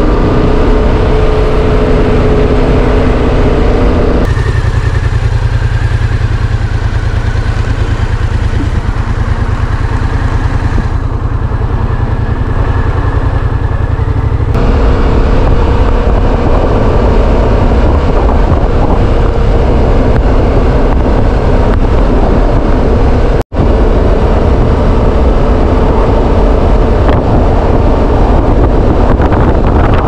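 2015 Yamaha MT-07's parallel-twin engine running steadily under way. The sound changes abruptly about four seconds in and again about fourteen seconds in, and it drops out for an instant about twenty-three seconds in.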